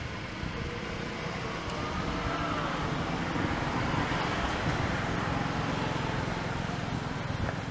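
A motor vehicle's steady running noise that swells over the first few seconds and then holds.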